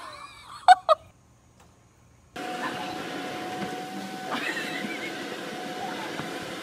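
Two short, loud animal cries close together about a second in, as a dog and cat scuffle. After a brief quiet, the steady rushing of an inflatable bounce house's electric blower, with a faint steady hum running through it.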